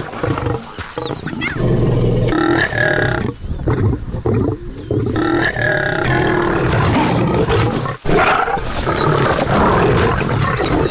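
Lions fighting: a lioness and a male lion snarling and growling at each other, with two long snarls about two and five seconds in.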